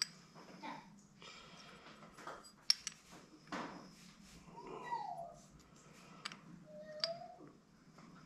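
Light metal clicks and clinks as a piston and connecting rod are turned over in the hands. Two short high whines come in near the middle and near the end.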